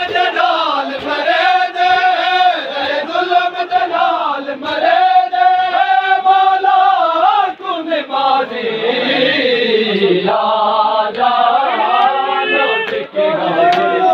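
Men chanting a noha (a Shia lament) in chorus, the voices held in long, drawn-out lines, with sharp slaps of hands on bare chests (matam) breaking in at intervals.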